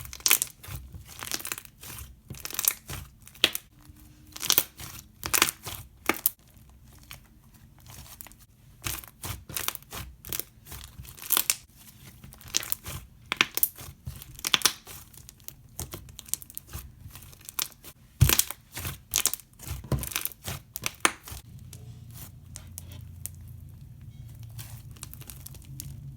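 Slice slime with jumbo foam beads squeezed and stretched by hand, giving irregular crackling pops and bubble crunches. The pops thin out near the end.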